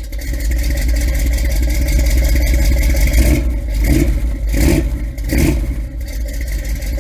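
A car engine running loudly, with four quick revs about three to five and a half seconds in.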